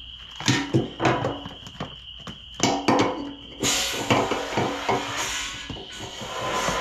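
A few knocks and clunks as the gas tank and hose are handled. Then, about three and a half seconds in, water from a garden hose starts rushing steadily into the generator's gas tank to rinse out the old-fuel crud.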